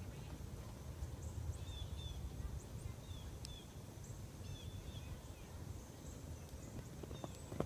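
Outdoor paddock ambience: a low wind rumble on the microphone with faint, scattered bird chirps. Near the end come a few sharp horse hoof clops.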